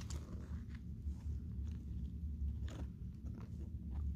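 Chard leaves rustling and crackling in a few short bursts as they are pushed aside, the strongest near the middle, over a steady low rumble of handling noise on a phone's microphone.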